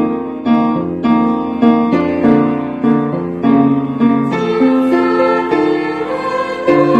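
Piano playing a steady pattern of repeated chords, about one strike every half second or so. The sound grows fuller about four seconds in.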